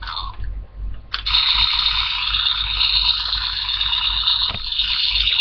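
Small electric motor and gears of a remote-control toy car whirring steadily, switching on abruptly about a second in; one click partway through.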